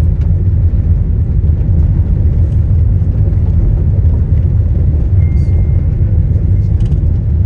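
Steady, loud low rumble with no breaks, heaviest in the bass.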